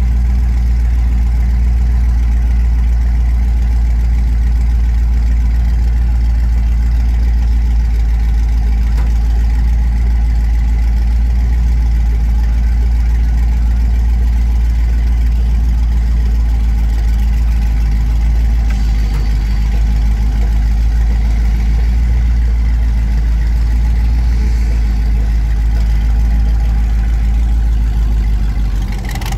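Freshly built hot-rod truck engine running steadily with a low, even drone.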